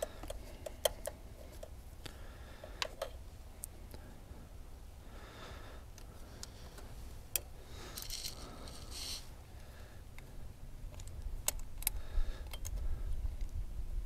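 Irregular small metallic clicks and clinks of a 10 mm wrench working the nuts that hold the glow plug rail on a Doosan D24 diesel engine, with two short rattling spells about five and eight seconds in.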